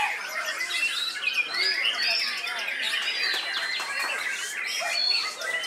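White-rumped shama singing amid a dense chorus of other caged songbirds: many overlapping whistles, sliding notes and rapid chirps at once, with no pause.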